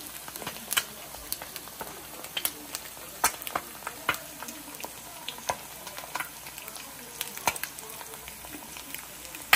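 Three eggs frying sunny-side up in a pan: a steady sizzle with frequent sharp, irregular pops and crackles.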